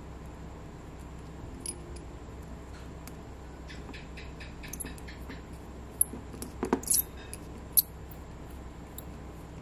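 Precision screwdriver turning a small metal screw into a 3D-printed plastic axle housing: a run of light ticks about four seconds in, then a few sharper clicks a couple of seconds later.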